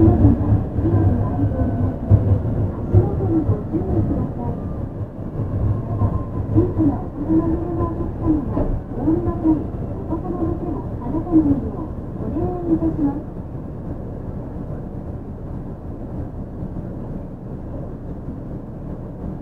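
Cabin sound of a Yui Rail 1000-series monorail car with a Hitachi IGBT VVVF inverter: the inverter's tones fall in pitch as the train slows, then short rise-and-fall tones repeat about once a second. After about thirteen seconds the sound settles to a quieter, even hum.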